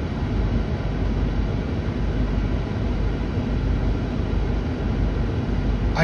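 Mercedes-Benz 560SEL's 5.6-litre V8 idling, heard from inside the cabin as a steady low rumble under an even hiss.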